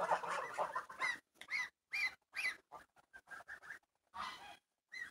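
Young domestic geese calling: a string of short, high-pitched rising-and-falling honks, with a run of short ticks in the middle.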